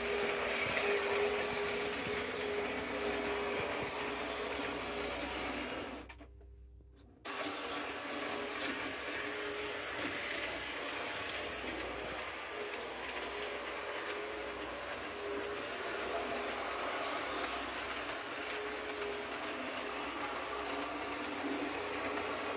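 H0 model train running on track: the locomotive's electric motor whirring and the wheels rolling over the rails, a steady hum. About six seconds in the sound fades to near silence for about a second, then comes back abruptly.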